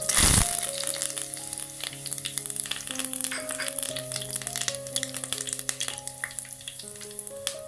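Curry leaves frying in hot sesame oil with mustard seeds: a loud sizzle as they hit the oil, then steady crackling and popping.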